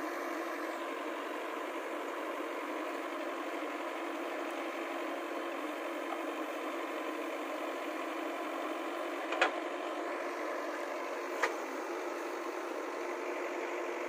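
JCB 3DX backhoe loader's diesel engine running steadily. Two sharp metallic knocks sound about two-thirds of the way through, two seconds apart.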